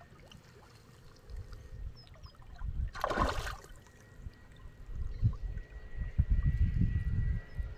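A hooked fish splashing at the water's surface, one short burst about three seconds in, over low rumbling thumps that grow stronger in the second half.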